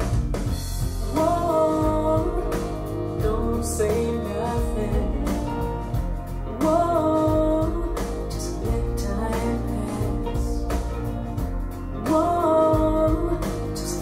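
Rock song played back through B&W 685 S2 bookshelf speakers: a woman singing over guitar, bass and drums, her sung phrase returning about every five and a half seconds.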